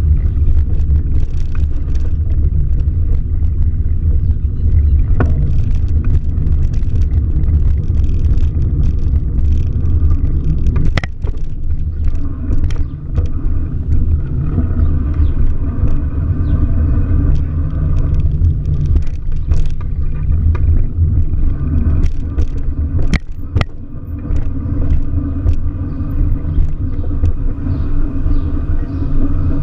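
Steady low rumble of a car on the move, engine and road noise, with a few sharp knocks, one about a third of the way in and two close together about three-quarters of the way through.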